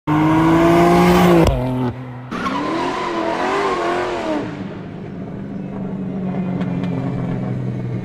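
Car engine revving hard with its pitch rising, breaking off after about a second and a half, then tyres squealing with a wavering pitch in a burnout, settling into a steady low engine drone.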